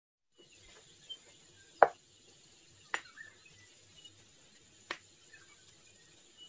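Stone mortar and pestle being handled: one sharp knock about two seconds in, then two fainter clicks about one and three seconds later, over a faint steady hiss.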